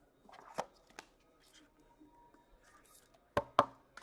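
Trading cards being handled and shuffled by hand, with a few sharp card clicks, the loudest a quick pair near the end.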